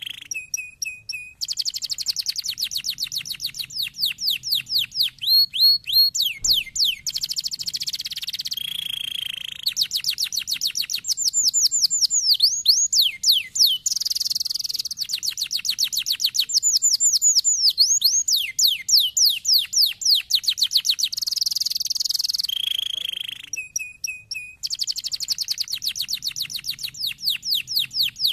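Domestic canary singing a long, continuous, high-pitched song that switches between fast buzzing trills and runs of quick repeated downward-sweeping notes.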